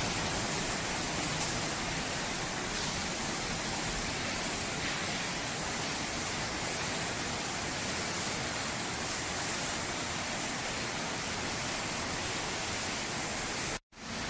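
Heavy rain falling: a steady, even hiss with no distinct drops or other events.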